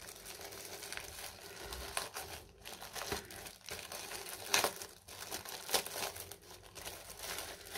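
Packaging being unwrapped and handled by hand: irregular crinkling and crackling, with a few sharper crackles about halfway through.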